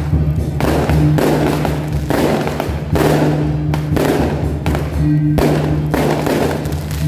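Loud procession music with a steady low droning tone and heavy thudding beats, mixed with firecrackers going off in noisy spells.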